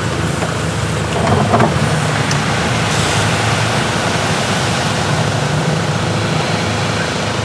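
Camper bus engine idling while stopped, heard from inside the cab with the side window open, as a steady low rumble. There is a brief sound about a second and a half in.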